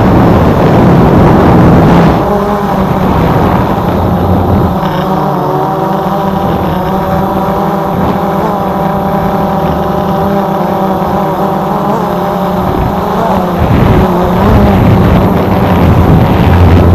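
Quadcopter drone's propellers running with a steady, multi-toned whine, over a loud low rumble of wind on the microphone that swells near the start and again near the end.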